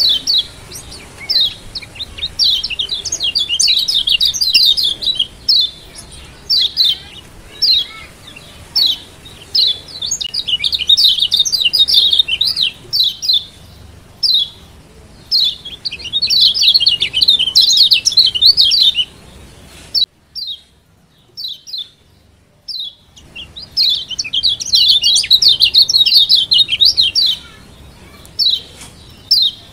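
Kecial kuning (Lombok yellow white-eye) calling: sharp, high single chirps between fast runs of rapid twittering, the 'ciak' calls used to rouse other kecial into song. The calling stops for about three seconds after the twittering runs, then starts again.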